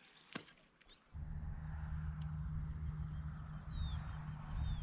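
A steady low rumble that sets in about a second in, with a few short chirping bird calls over it and a single click near the start.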